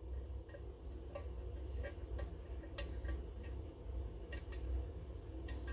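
Small irregular metallic clicks, roughly two a second, from a Multipick V41 hook pick feeling the pin stacks inside the keyway of a Goal GCY-79 lock.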